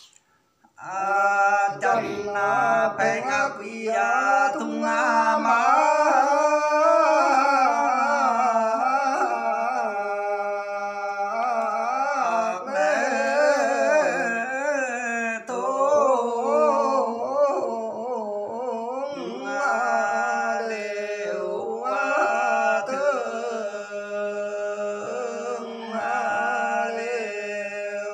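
A single voice singing a slow, wavering, melismatic melody with long held notes, starting about a second in, over a steady low tone.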